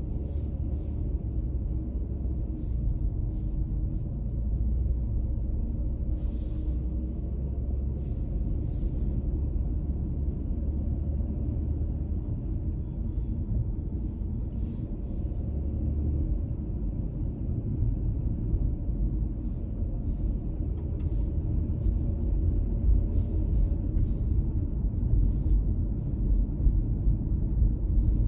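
A car driving along, its road and engine noise a steady rumble with a few faint ticks. It grows louder over the last few seconds.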